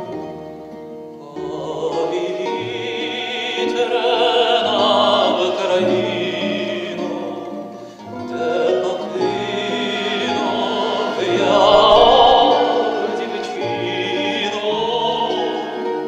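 A man singing a Ukrainian song in a lyrical classical style with vibrato, over instrumental accompaniment. The voice comes in about a second in and sings two long phrases with a short break near the middle, swelling loudest in the second phrase.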